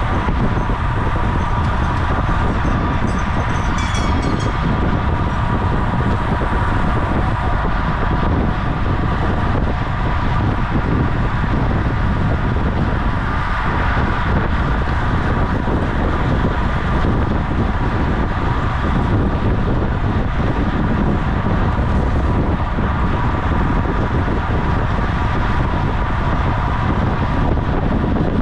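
Steady rush of wind on the microphone of a racing road bike moving at speed, with a steady hum from the bike running underneath. A few faint ticks sound about four seconds in.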